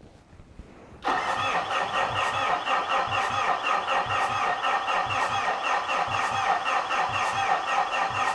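Starter cranking the Mitsubishi Fuso FG's 4P10 four-cylinder common-rail turbo diesel, starting about a second in with a steady, even rhythm of compression strokes. The engine turns over but does not fire: no-start from lack of fuel rail pressure.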